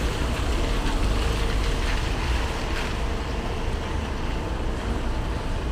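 City street traffic on rain-wet pavement: cars driving past with the hiss of tyres on water over a steady low rumble, the hiss swelling a little in the middle.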